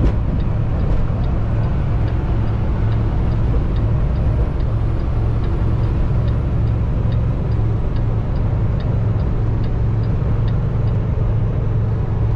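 Kenworth semi-truck's diesel engine and tyres droning steadily at highway speed, heard inside the cab. A light, regular ticking, about two a second, runs over it and stops near the end.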